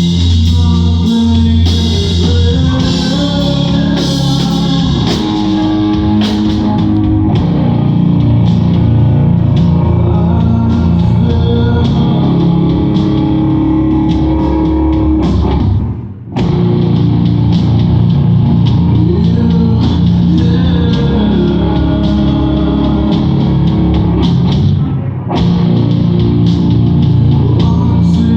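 Live rock band playing, with guitar and drum kit, dropping out for a split second about sixteen seconds in.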